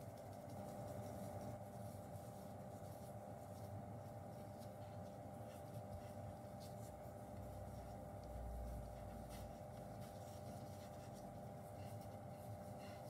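Faint scratchy rubbing and light ticks from a fine-mesh sieve dusting strawberry powder and gloved fingers shifting soft chocolate cubes on a wooden board, over a steady low room hum.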